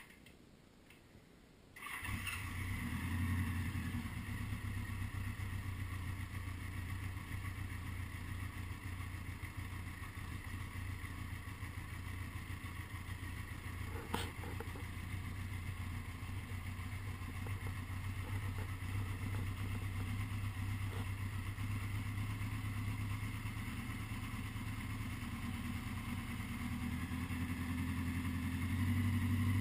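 A 1980 Honda GL1100 Gold Wing's flat-four engine starts about two seconds in, catching at once on a slightly cold start after a carburettor rebuild, then runs at a steady idle, which the owner calls a perfect carb synch. There is a single click about midway, and the engine gets a little louder near the end.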